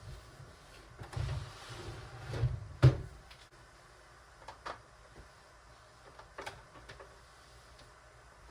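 Household objects being moved and handled: a low rumbling shuffle, then one sharp knock about three seconds in, the loudest sound, and a few lighter clicks and taps after it.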